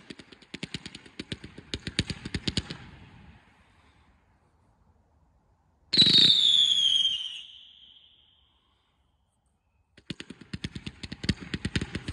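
188-shot firework cake firing rapid volleys of sharp pops that die away after about three seconds. About six seconds in comes the loudest shot: a sudden burst with a falling whistle lasting about a second and a half. Rapid popping starts again about ten seconds in.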